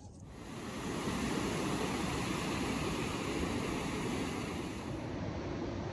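Ocean surf breaking and washing up a sandy beach: a steady rushing noise that swells up over the first second and then holds.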